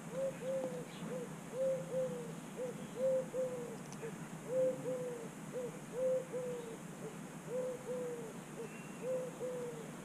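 A pigeon cooing: a repeated phrase of one short note and two longer notes, over and over at an even pace.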